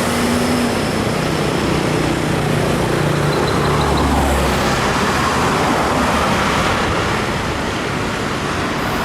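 Heavy trucks and buses passing close by, their diesel engines droning low under a steady rush of road noise.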